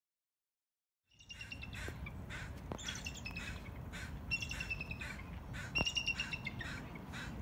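Raptors in the treetops calling, taken for eagles or hawks: a series of high, thin, slightly falling whistled notes, repeated about every second and a half, starting about a second in over steady low background noise.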